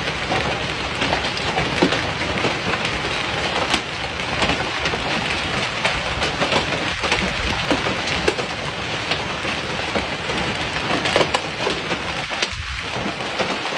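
Hailstones and rain pelting a street and driveway: a dense, steady clatter dotted with sharper individual hits.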